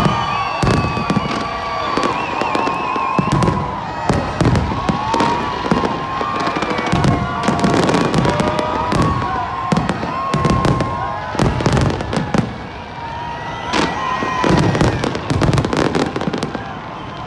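New Year fireworks display: a rapid, continuous run of bangs and crackling bursts, several a second, with louder bursts near the end.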